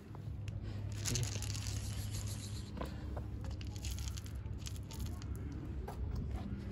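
Rustling and crinkling as a backpack and cat-food bag are handled, with dry cat kibble rattling in a plastic scoop as small irregular clicks, over a steady low hum.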